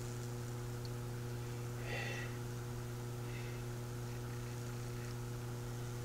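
Microwave oven transformer humming steadily under high-voltage load while it burns branching Lichtenberg-style 'trees' into wood: a low even electrical hum with a ladder of higher overtones.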